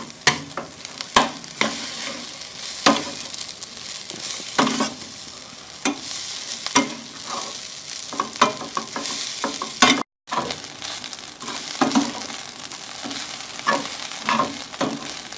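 Fried rice sizzling in a pan as it is stir-fried, with frequent irregular scrapes and knocks of a spatula against the pan over a steady frying hiss. The rice has just gone in with the fried spice paste, petai, sauces and egg. The sound cuts out for a moment about two-thirds through.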